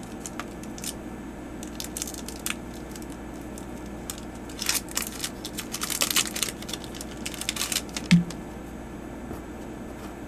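Foil wrapper of a Magic: The Gathering booster pack being crinkled and torn open: a few light crinkles at first, then a dense stretch of crinkling and tearing from about halfway, ending in a short thump as the cards come out.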